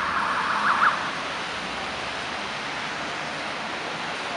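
Police car siren wailing, ending about a second in with two quick sharp yelps, then a steady hiss of passing traffic.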